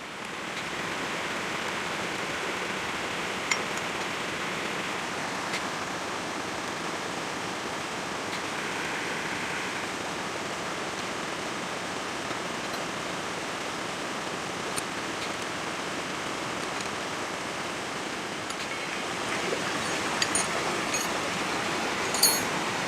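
Steady rushing of flowing water, swelling in about half a second in and holding evenly, with a few light metallic clicks near the end.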